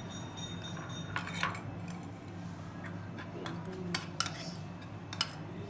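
Fish pieces and fingers knocking against a stainless steel tray while the fish is rubbed with masala: a handful of sharp metallic clinks and taps over a low steady hum.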